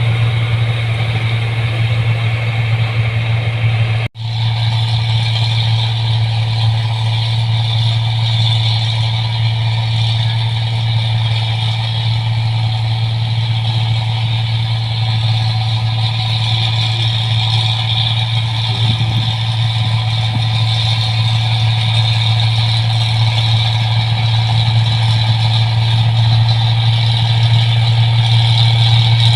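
New Holland 1545 rice combine harvester running steadily, its engine and machinery giving a continuous low drone, with a momentary break about four seconds in.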